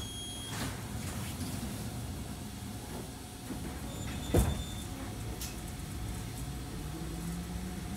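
Inside a Wakayama Electric Railway Tama train as it moves off: a low steady rumble of the car, one sharp clunk about halfway through, and a rising whine near the end as it picks up speed.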